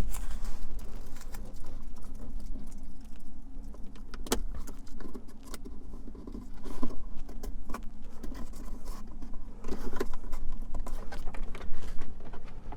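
Painter's tape being pulled off the roll, torn and pressed down around the aux jack on the dashboard trim: an irregular run of crinkly rustles with small clicks and taps.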